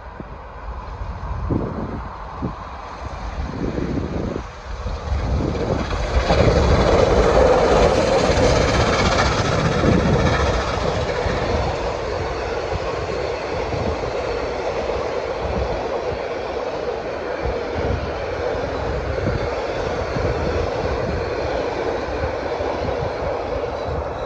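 Two R-class Hudson (4-6-4) steam locomotives running double-headed approach and pass at speed, loudest about six to ten seconds in. Then comes a steady rumble of the passenger carriages rolling by, with rapid clatter from the wheels on the rails.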